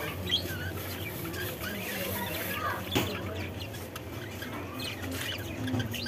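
A flock of budgerigars chirping and chattering in short, scattered warbling calls, with one sharp click about three seconds in.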